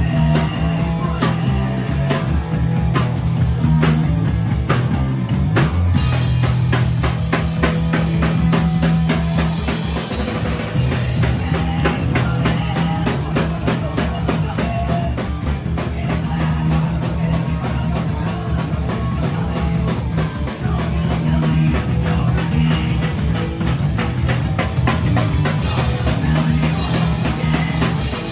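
Hardcore punk band playing live and loud: fast drumming on a drum kit, guitar, and a woman singing into a microphone.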